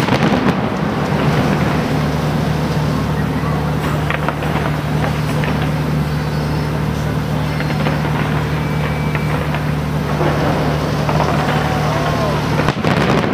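Crowd noise from many spectators, voices rising near the end, over a steady low hum, with a few faint cracks about four seconds in.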